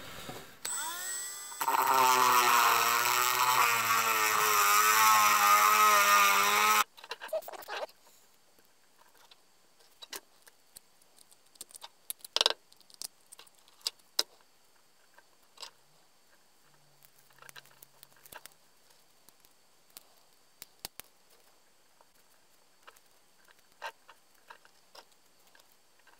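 A small power drill whirs up briefly, then runs for about five seconds with its pitch wavering under load as it enlarges a hole in a 3D-printed plastic part, and stops suddenly. After that come faint clicks and scraping from hand work on the printed part and the wires.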